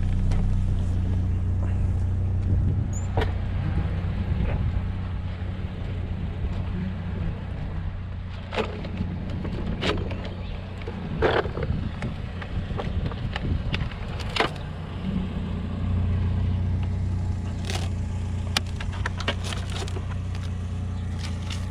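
GMC Sonoma pickup's engine idling steadily, with a scattering of short, sharp knocks and clanks over it.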